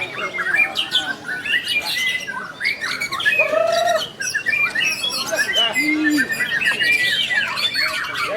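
Several white-rumped shamas singing at once: dense, overlapping whistles, trills and chirps.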